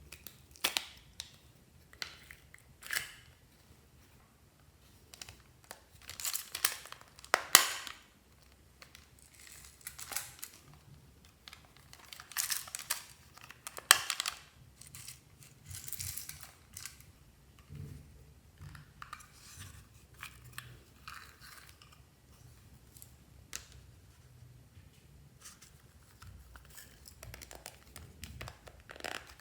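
Glossy slime being stretched, pressed and pulled apart by hand: irregular sticky pops, clicks and tearing sounds, a few of them sharp and loud, with quieter gaps between.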